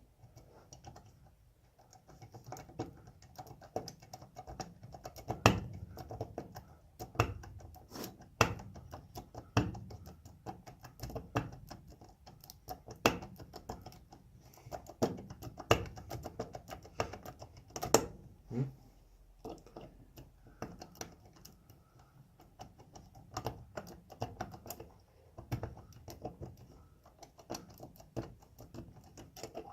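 A tubular lock pick being worked in a tubular lock: irregular small metallic clicks and rattles, with a few louder sharp clicks now and then, as the pick's feelers are pushed and turned against the pins.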